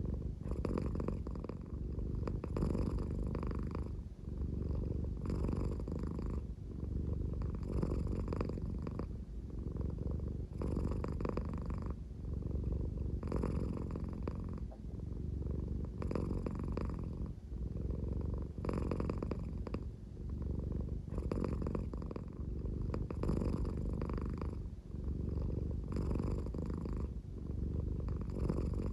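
American Shorthair cat purring deeply at a slow pace, snore-like. The purr swells and dips in a regular breathing rhythm, about once every two and a half seconds.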